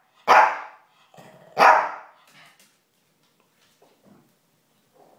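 Small dog barking: two loud, sharp barks in the first two seconds with a softer one between them, then only faint scattered sounds. These are demand barks, the dog calling to be picked up onto the bed.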